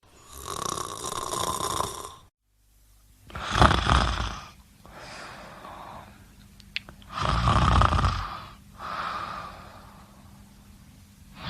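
A person snoring: one long snore, then after a short cut two loud snoring breaths about three and a half seconds apart, each followed by a quieter out-breath. A brief click falls between the two snores.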